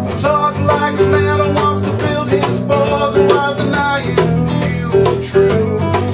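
Acoustic blues played live on a metal-bodied resonator guitar and an acoustic guitar, with held and bending notes over a steady rhythmic beat.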